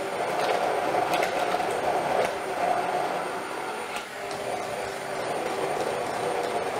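Hand-held immersion blender running steadily in a stainless steel saucepan, its blade churning egg whites into thick chocolate ganache, with a faint high whine and a few light ticks.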